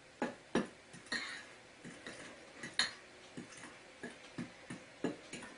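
A metal fork stirring baking soda in a ceramic bowl, clinking and scraping against the bowl in irregular clicks to break up lumps.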